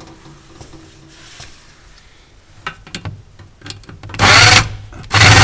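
Milwaukee cordless drill/driver running on a freezer-liner screw in two short bursts about four and five seconds in, after a few light clicks from the bit being set to the screw.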